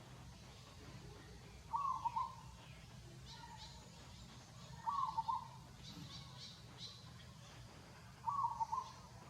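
A bird calling: a short, fluttering call about half a second long, repeated three times about every three seconds, with faint high chirps of other small birds between.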